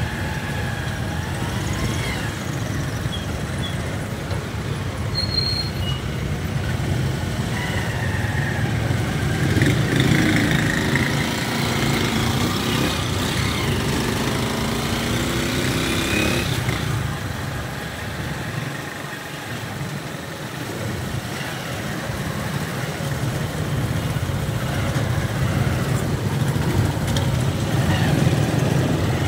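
Street traffic: motorcycle and motorized tricycle engines running steadily in slow, close traffic, a low rumble that eases briefly about two-thirds of the way through before building again.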